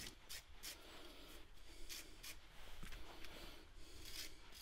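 Hand wire brush scrubbing old threadlock off the threads of a brake caliper mounting bolt: a quick run of faint scratchy strokes, about two to three a second.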